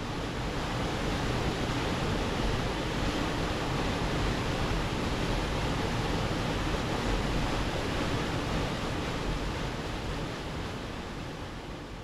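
Hollybush Spout waterfall pouring into its rock pool, a steady rush of falling water that fades down over the last couple of seconds.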